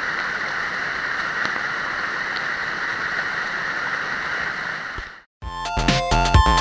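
Water rushing steadily over rocks in a small waterfall cascade, fading out about five seconds in. Electronic background music starts just before the end.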